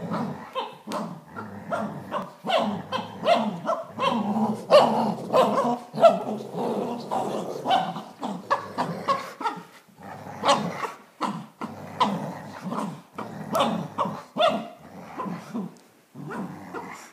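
A dachshund and a Greater Swiss Mountain Dog growling and barking in play while tugging on a toy, with many short growls and barks in quick succession.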